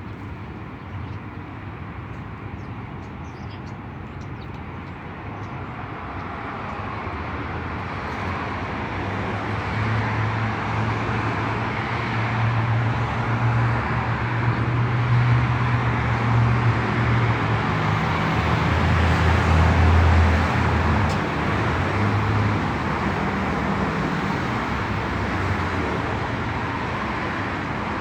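Street traffic: a steady wash of passing cars, with a vehicle's engine hum building to its loudest about two-thirds of the way through, then easing off.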